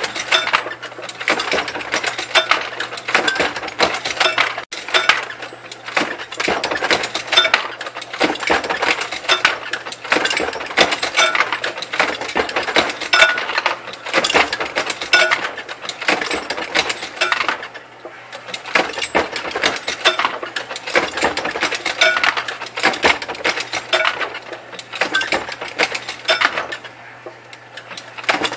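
Dillon 650 progressive reloading press being cycled by hand: a rapid run of metallic clacks and brass clinks that swells and eases every few seconds with each stroke, over a steady low hum.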